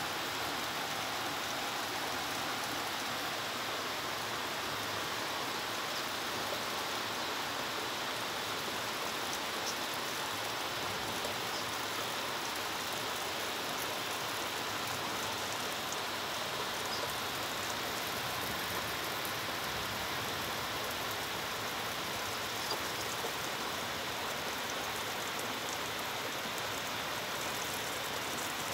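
Steady rain falling, an even hiss with a few faint drop ticks.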